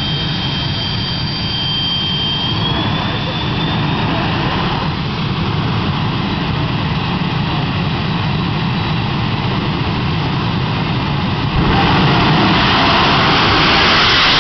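Jet dragster jet engines running loudly at the start line, a high whine gliding up in pitch a few seconds in. About eleven and a half seconds in the sound jumps louder and harsher as a dragster launches down the track under full power.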